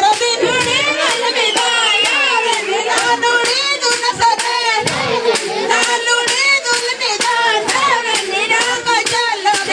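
A group of women singing a Tira dance song together, many voices at once, with steady rhythmic hand clapping keeping the beat.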